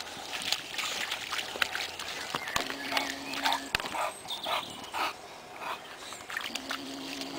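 Bulldog snuffling with its nose down in the grass, among short rustles and clicks of the grass it pushes through.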